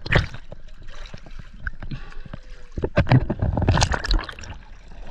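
Water splashing and sloshing, with irregular knocks and clatter that are busiest about three to four seconds in.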